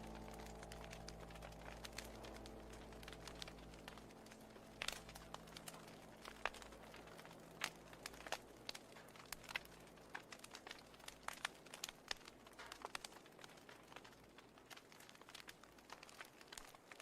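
Faint wood fire crackling: scattered small pops and snaps, a few sharper ones, as the last notes of music fade away at the start.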